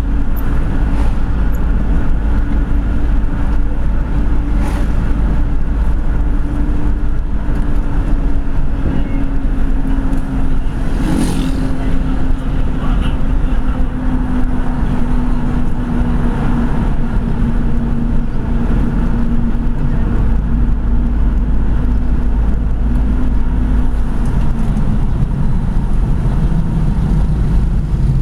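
Car engine and road noise heard from inside the cabin while driving, a deep rumble under a steady engine drone that sinks slowly in pitch over the second half. A short sharp noise about eleven seconds in.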